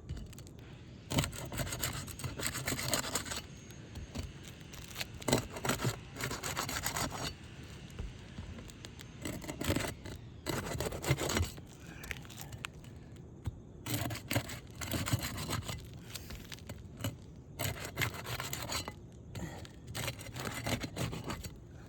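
Hand tool scraping under asphalt roof shingles to break their adhesive seal strips, in repeated irregular bursts of scraping and peeling with short pauses between.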